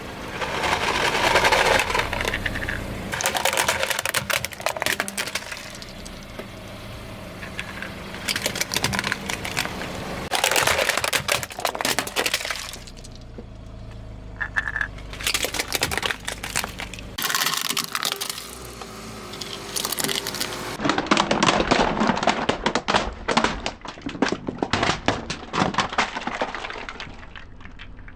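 Objects crunching, cracking and snapping as they are crushed under a car's tyres, in several loud runs of dense crackling over the car's low engine hum.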